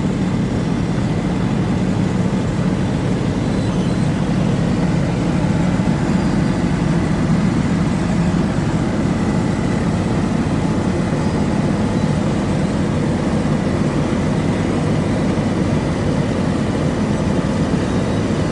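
Roadtec cold planer (road-milling machine) working: its heavy diesel engine running hard with the grinding of the cutting drum, a loud steady din.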